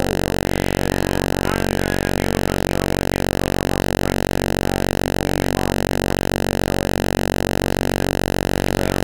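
A steady, unchanging low buzzing drone with many overtones.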